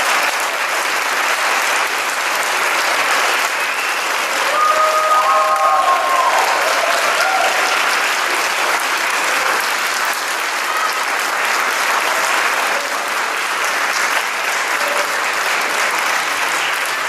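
A concert-hall audience applauding steadily. About five seconds in, someone in the audience calls out briefly above the clapping.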